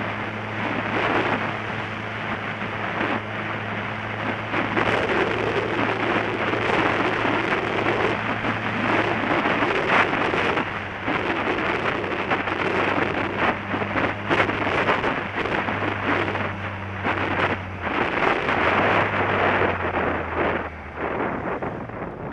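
Wind rushing over the microphone of a camera on a moving motorcycle, with the engine's steady low drone underneath. The engine note steps down twice near the end.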